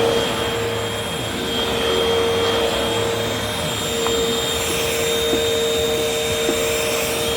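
Several vacuum cleaners running on a floor, a steady motor whine with a hum that fades about a second in and comes back strongly around four seconds in.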